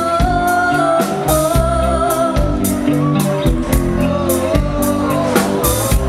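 Live pop-rock band: a woman singing lead into a microphone, holding long notes, over electric guitar, bass guitar and a drum kit with a steady beat, amplified through stage speakers.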